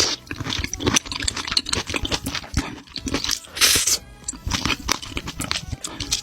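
Close-miked eating sounds: crunching and chewing in quick, irregular crackles, with a louder crunch a little past halfway, over background music.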